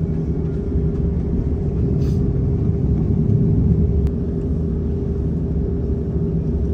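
Cabin noise of an Airbus A330-900neo taxiing: a steady low rumble with a steady hum running through it.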